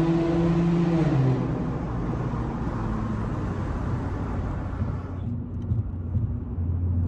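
A motor vehicle running. Its pitched drone steps down about a second in, the sound turns duller around five seconds, and a low steady hum comes in near the end.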